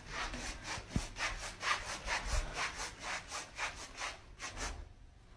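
Fingers scratching on a tiled floor in quick, faint strokes, about four a second, that stop shortly before the end.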